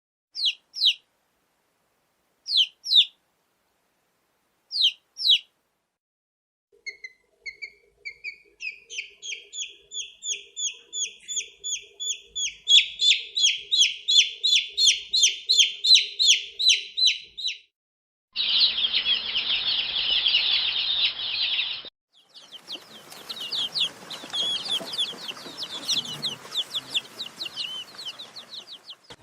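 Domestic chicks peeping. First come a few short double peeps spaced a couple of seconds apart, then a long run of rapid, high peeps about three a second that grows louder. After that come two stretches of many chicks chirping together over a steady background hiss.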